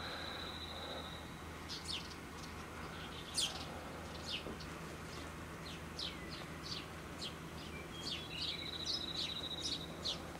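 Small birds calling: a run of short, high, falling chirps scattered all through, and a high trill held for about a second and a half near the start and again about eight seconds in.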